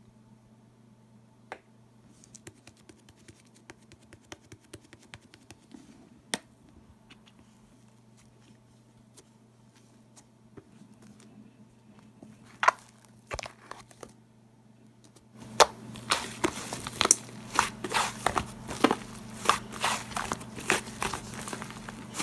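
Slime being handled by hand: faint scattered crackles and clicks at first, then from about fifteen seconds in a dense, louder run of clicks and pops as the slime is pressed and worked. A steady low hum lies underneath.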